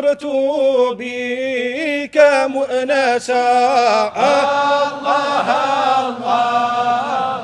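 Unaccompanied men's voices chanting a Sufi devotional poem (samaa), in long held notes that bend in pitch.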